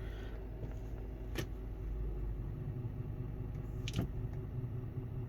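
Volkswagen Touareg's V10 TDI diesel idling in gear: a steady low hum with a very faint rubbing or grinding noise, which the owner suspects is the torque converter. Two short sharp clicks, about a second and a half in and again about four seconds in.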